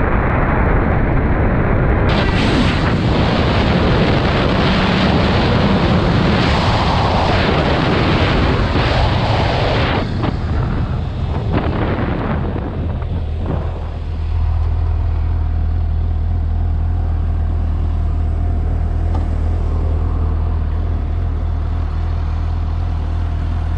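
Motorcycle riding on a road, with heavy wind rush on the microphone for about the first ten seconds. After about fourteen seconds the wind dies down and the engine runs steadily with a low hum.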